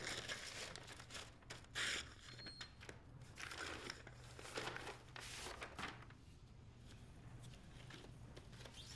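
Paper rustling and crinkling as a brown paper mailer is opened and a vinyl record in its sleeve is slid out and handled: a run of irregular rustles, the loudest a sharp crinkle about two seconds in, dying away after about six seconds.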